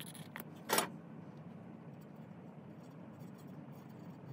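Thin wire scraping flux paste out of a small plastic pot, with one short scrape a little under a second in, then faint handling and dabbing sounds over a low steady hum.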